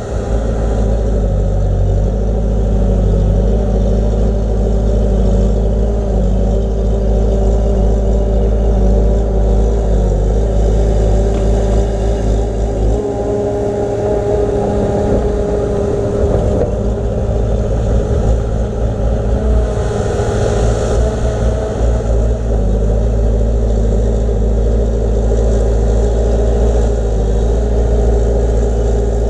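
Diesel engine of heavy earthmoving machinery running steadily close by, its low rumble thinning and its pitch shifting a little for several seconds midway as the load changes.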